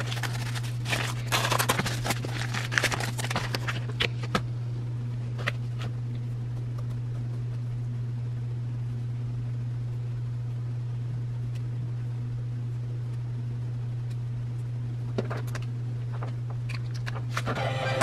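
Rustling, crinkling and small clicks of packaging being handled as a bracelet is put into a small drawstring baggie, mostly in the first four seconds and again near the end, over a steady low hum.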